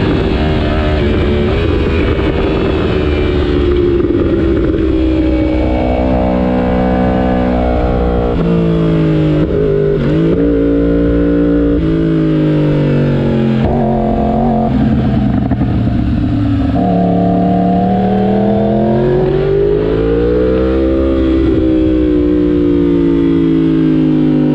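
Yamaha R1M superbike's crossplane inline-four engine ridden hard on track. The revs climb and fall again and again, with quick drops in pitch between rises as it shifts through the gears and slows for corners.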